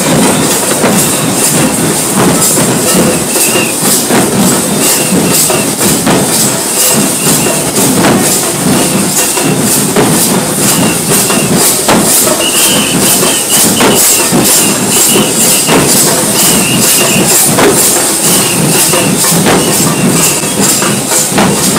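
A band of Bengali dhak drums (joy-dhak) beaten with sticks in a loud, fast, steady rhythm.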